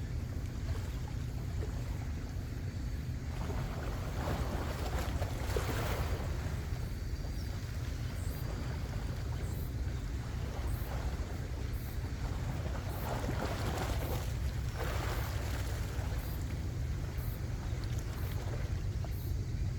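Seaside ambience: a steady low rumble with two swells of washing water, about four seconds in and again about thirteen seconds in.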